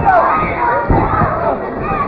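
Wrestling crowd shouting and yelling at the action in the ring, many voices overlapping, with a single thud about a second in.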